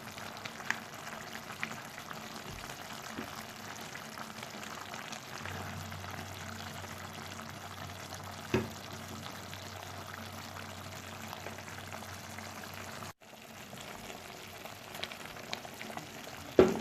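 Pot of plantain porridge simmering on the heat: a steady bubbling hiss with a few light clicks, broken briefly about two-thirds of the way through.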